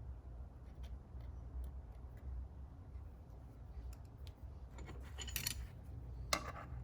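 Small steel transmission parts being handled while the shift-drum detent spring is fitted: scattered light clicks, a brief rattling scrape about five seconds in, and a sharp metallic click near the end, over a low steady hum.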